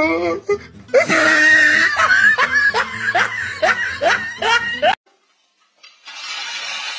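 Laughter-like run of rising cries, about three a second, over music; it cuts off suddenly. After a second of silence a steady hiss begins.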